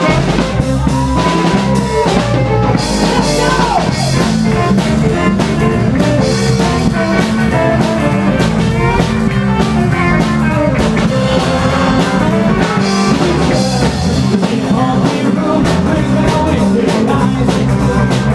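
Rockabilly band playing live: a drum kit keeping the beat under a stepping bass line, with saxophones and electric guitar on top.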